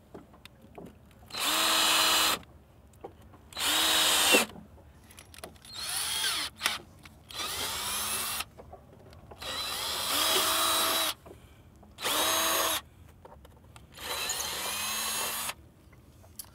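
Cordless drill run in about seven short bursts, each spinning up and winding down, as it countersinks and drills bolt holes into a fiberglass boat deck. The countersinking chamfers the gel coat so it doesn't chip or crack when the holes are drilled.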